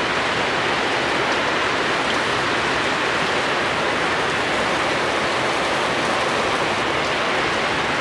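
Heavy rain pouring down, a dense, steady hiss without a break.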